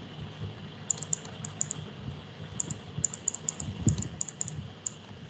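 Light, irregular clicks and taps in quick clusters from a stylus on a pen tablet as handwriting is written, over a low background hum.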